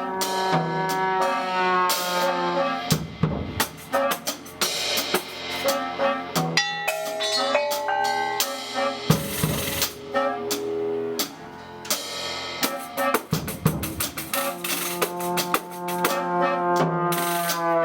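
Ensemble music with a drum kit: held notes from several pitched instruments, some sliding in pitch near the start and near the end, over frequent snare and bass drum hits.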